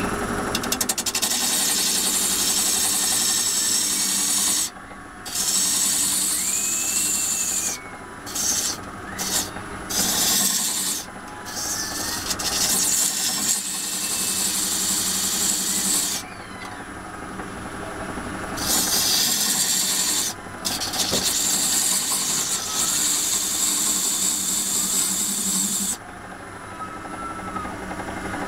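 Parting tool cutting a groove into a spinning wooden blank on a wood lathe: a steady scraping cut that breaks off and starts again several times as the tool is eased out and back in, over the steady hum of the lathe motor.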